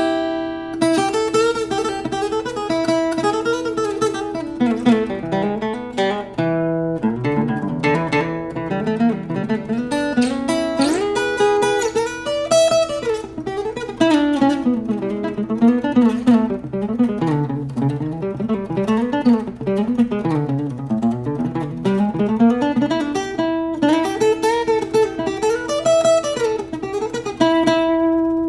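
Solo acoustic guitar played fingerstyle: an instrumental melody picked over a recurring held note.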